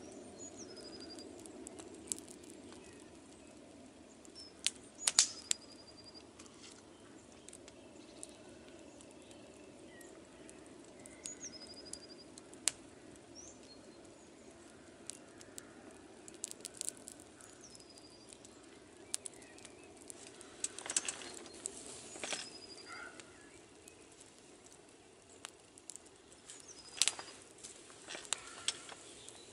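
Knife carving a wooden spoon by a crackling wood fire: scattered sharp clicks and snaps, the loudest about five seconds in and again near the end. A bird repeats a short, high, falling call every five seconds or so.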